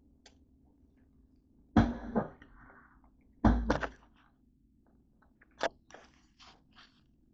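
Handling noise: two loud bumps with a short rustle, about two seconds apart, then a run of light clicks and taps.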